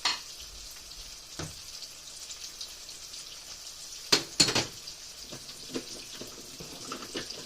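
Slices of breaded green tomato frying in hot oil in a pan with a steady sizzle, broken by a few sharp knocks and clatters, the loudest cluster a little past the middle.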